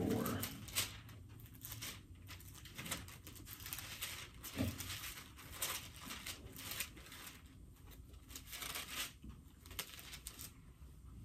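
Bible pages being leafed through while looking up a verse: soft, scattered paper rustles, with one dull bump about four and a half seconds in.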